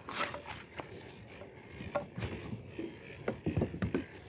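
Handling noises on a plastic kayak: scattered sharp taps and scrapes, then a quick cluster of knocks about three and a half seconds in.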